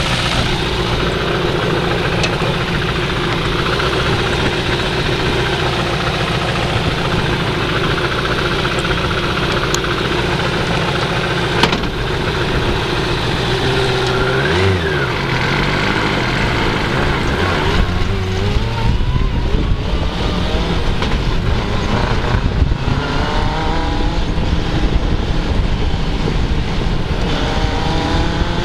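Suzuki GSX-R600 inline-four motorcycle engine in an off-road buggy, running steadily and then revving up several times in the second half, rising in pitch with each acceleration.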